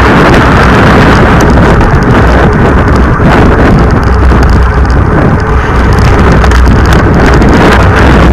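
Wind buffeting the microphone of an action camera on a racing bicycle at race speed: a loud, steady rush with a deep rumble, mixed with road noise.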